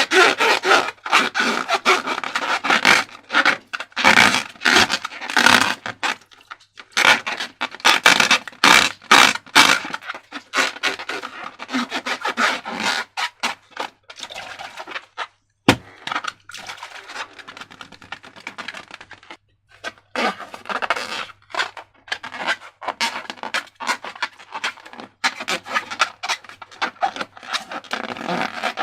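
Slime and rubber balloons being handled and squeezed: irregular sticky crackling, rubbing and scraping that comes and goes in bursts, with one sharp click about halfway through.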